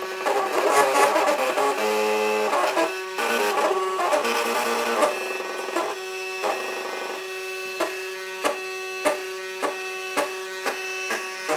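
MakerBot Cupcake CNC 3D printer's stepper motors whining in steady tones that jump to a new pitch with each move. In the second half they are joined by regular ticks, a bit under two a second.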